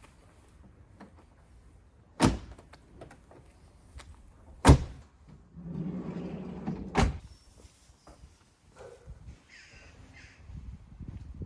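Van doors being worked: two heavy thunks, then a sliding door rolling along its track for about a second and shutting with a third thunk.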